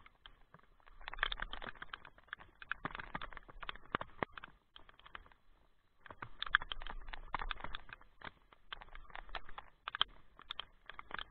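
Rain pattering: heavy drops tap irregularly on the kayak and the camera, in waves of a second or two.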